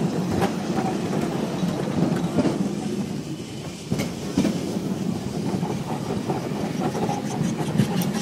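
Tram running along a city street: a steady rumble of steel wheels on rails, with scattered clacks and knocks, a sharp one about four seconds in.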